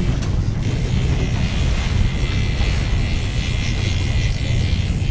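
Twin outboard motors running steadily at slow trolling speed, a constant low drone, with wind buffeting the microphone.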